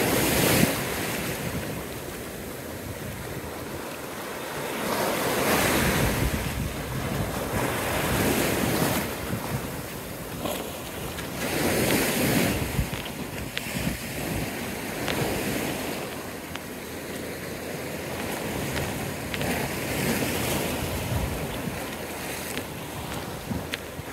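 Small ocean waves washing in over rocks and sand, the rush of surf swelling and fading every few seconds.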